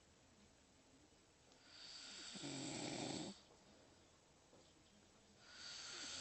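Slow, regular snoring. About two seconds in, one long snore starts as a breathy hiss, turns into a low snore and stops abruptly. The next snore begins near the end.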